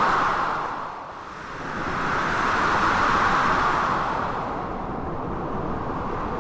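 Howling blizzard wind mixed with sea waves, a dense rushing noise. It is loud at first, dips about a second in, swells again for a few seconds, then settles a little lower.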